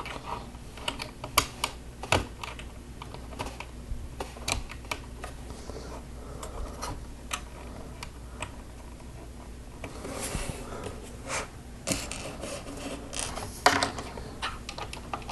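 Small plastic Lego pieces clicking and tapping as they are handled and pressed onto the model, in irregular sharp clicks.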